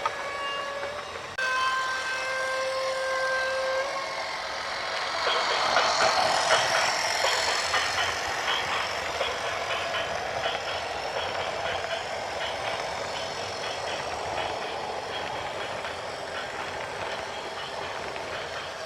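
An air horn sounding a multi-tone chord in two long blasts, then a heavy vehicle rumbling past with rapid metallic clicking and rattling.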